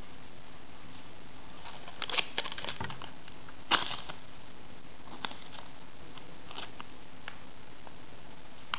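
Small cardboard game cards being handled and thumbed through in the hands: a cluster of quick flicks and snaps about two seconds in, a sharper snap a second or so later, then a few faint ticks.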